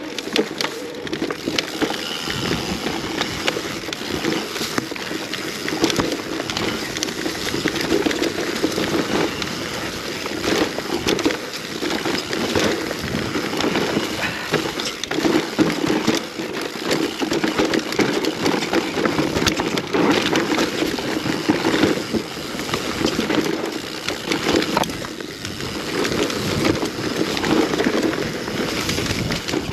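Mountain bike riding down a rough dirt trail: continuous tyre rumble with frequent clatters and knocks from the bike over the bumpy ground.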